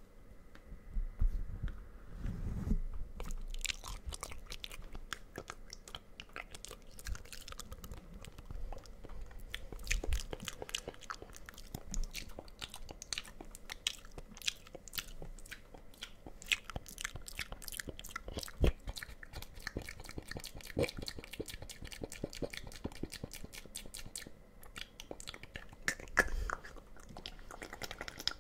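Close-up mouth sounds into a microphone: a rapid, irregular stream of wet clicks and pops from the lips and tongue.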